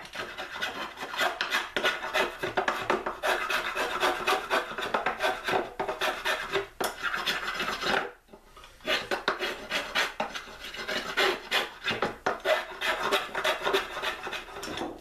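Steel spokeshave blade shaving an oak axe handle in repeated scraping strokes, smoothing the rounded handle. The strokes pause briefly about halfway through.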